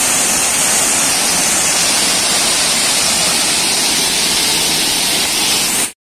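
Waterfall cascading down a rocky face: a loud, steady rush of falling water that cuts off abruptly near the end.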